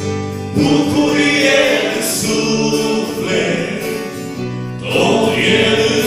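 A group of male voices singing a Christian worship song in Romanian in held, sung phrases, with acoustic guitar and electric keyboard accompaniment.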